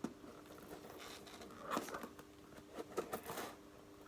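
Scissors cutting and tearing packaging on a phone box: a few short, scratchy strokes, the longest about three seconds in.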